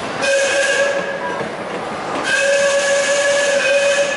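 Narrow-gauge steam locomotive whistle blowing two blasts at one steady pitch, a short one and then a longer one of about two seconds, over a hiss of steam.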